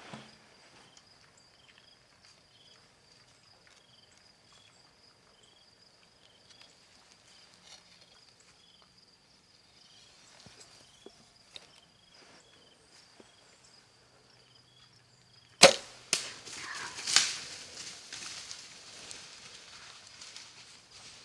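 Insects buzzing and chirping steadily, then about 15 seconds in the sharp crack of a bow shot at a feral hog. Loud crashing and scuffling follow for several seconds as the hogs bolt.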